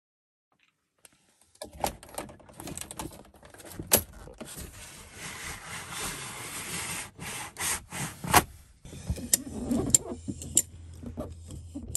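Rattling, clicks, knocks and rustling of things being handled, the sharpest knocks about four and eight seconds in; a low steady hum joins about nine seconds in.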